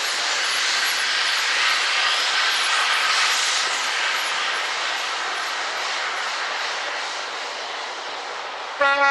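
LMS Class 5MT 'Black Five' 4-6-0 steam locomotive pulling away with a steady rush of steam that fades as it draws off, then a short, loud whistle blast right at the end.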